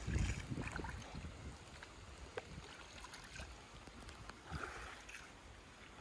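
Faint river water sloshing as a cast net is thrown, with a brief splash about four and a half seconds in as the net lands on the water.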